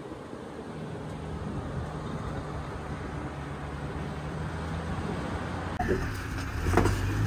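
Jeep engine running at low revs while crawling over slickrock: a steady low drone. It gets louder about six seconds in, with a few short knocks.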